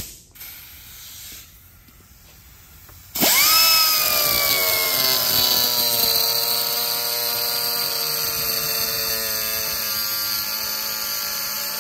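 Air cut-off wheel starts about three seconds in with a loud whine that sinks in pitch as the disc bites, then grinds steadily while cutting away the rolled metal edge of a McLaren cam phaser's cap.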